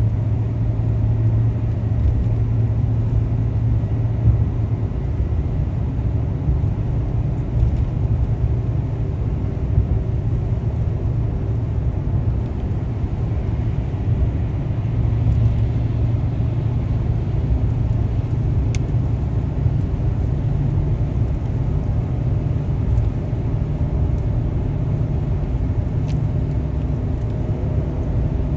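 Steady road and engine noise of a moving vehicle: an even low rumble with faint droning tones above it.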